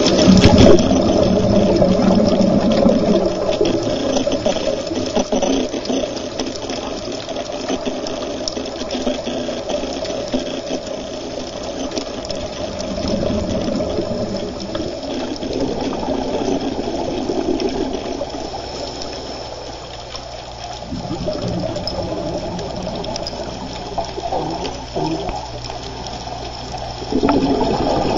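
Underwater sound of a scuba dive picked up through the camera's housing: the rushing, crackling bubbles of divers' exhalations from their regulators, swelling and easing several times.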